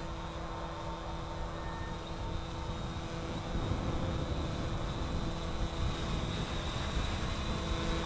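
Wind noise on the microphone, louder from about three and a half seconds in, over the steady hum of a Force1 F200C Specter quadcopter's brushless motors holding a hover in the wind.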